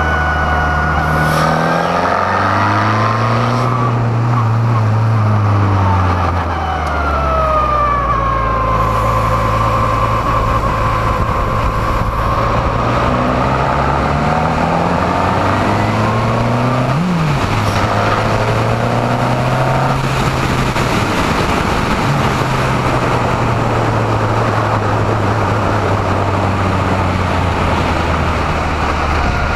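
Formula Renault 2.0 race car's 2.0-litre four-cylinder engine heard from the open cockpit, revving up and down in pitch as the car accelerates, shifts gear and slows for the corners, with a brief sharp rev about seventeen seconds in.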